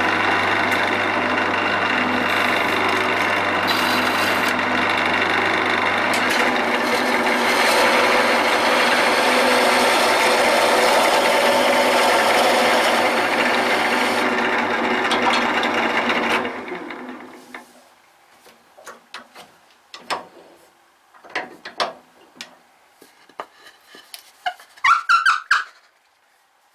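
Wood lathe running, with a skew chisel cutting a tenon on the spinning leg blank: a steady hiss of the cut over the motor's hum. About two-thirds of the way through the lathe is switched off and runs down, leaving scattered light knocks and a short squeak near the end.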